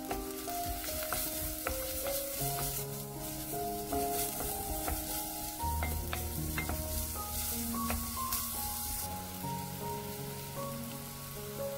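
Diced onion and green onion sizzling in hot oil in a pot, stirred with a wooden spoon that gives a few light taps and scrapes. Background music plays under it.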